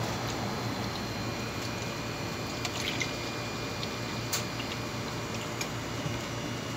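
Milk poured from a carton into a plastic cup: a soft, steady pouring over a constant low background hum, with one faint click about four seconds in.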